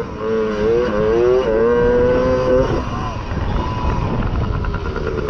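Mini motocross bike engine revving up through the gears, its pitch climbing and dropping back at each shift. About two and a half seconds in the throttle shuts off, leaving a rough rushing noise with the engine much lower.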